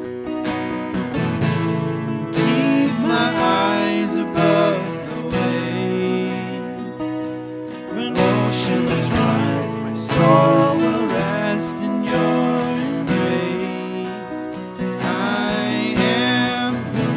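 Two acoustic guitars strummed together, with men singing a worship song over them.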